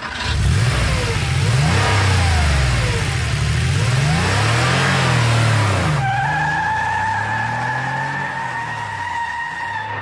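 Car engine revving, its pitch rising and falling again and again for about six seconds. Then a steady high squeal of spinning tyres takes over, with the engine still running under it.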